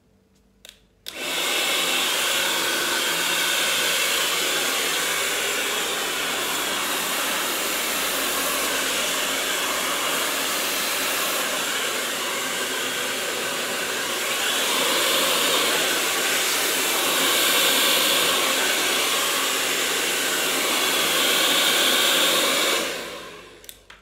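Black Eagle professional hair dryer. After two clicks it starts about a second in and blows a loud steady hiss as it dries hair, its level rising and falling a little, then winds down near the end.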